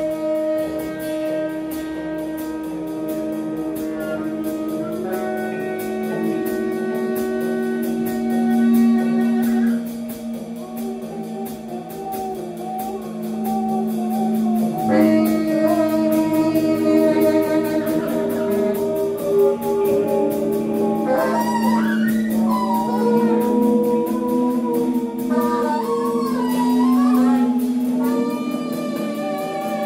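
Free-improvised ensemble music of long, overlapping held tones from saxophone, bass clarinet and guitar, with some pitches sliding up and down in the second half.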